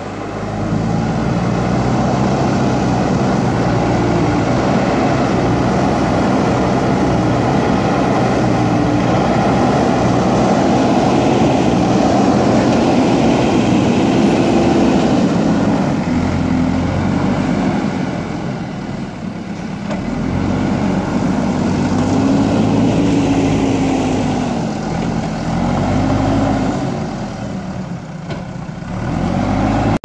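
JCB Eco Xcellence backhoe loader's diesel engine running while the front loader bucket works mud, revving up and falling back several times in the second half.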